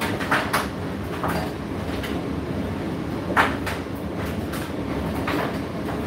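Indesit IDC8T3 condenser tumble dryer running mid-cycle: a steady rumble of the turning drum, with irregular knocks and clicks from the load tumbling inside, the loudest about three and a half seconds in.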